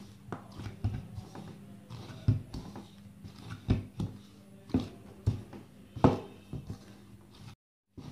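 Hands kneading a stiff egg-and-flour pasta dough in a bowl: dull, irregular thumps and squashes about once a second as the dough is pushed and folded against the bowl.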